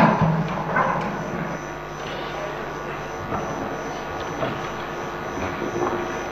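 Steady background noise of a large legislative hall, with a few faint scattered knocks. The tail of a run of rhythmic thumping, the members' desk-thumping, dies away in the first second.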